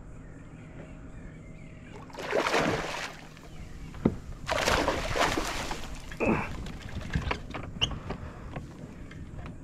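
A hooked flounder splashing at the water's surface beside a kayak as it is netted: two splashy bursts, about two seconds in and again about four and a half seconds in. Then scattered knocks and clicks as the landing net and fish are handled in the kayak.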